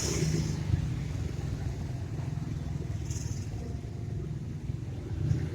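Low, steady rumble of a train running on the nearby railway track. Two short high-pitched sounds break in, one at the start and one about three seconds later.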